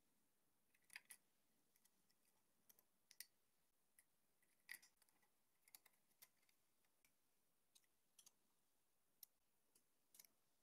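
Near silence with a few faint, sharp clicks, an Allen key working on the bolts of a small aluminium-and-acrylic assembly.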